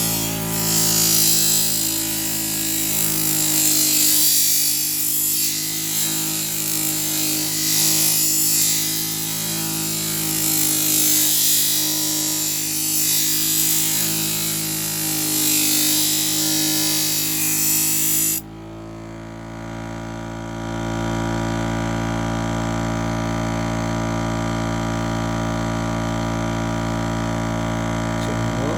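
Electric knife-sharpening machine running with a steel knife blade pressed against its coarse abrasive paper: a steady grinding hiss over the motor's hum. About two-thirds of the way through, the grinding cuts off suddenly as the blade is lifted, and the motor hums on alone.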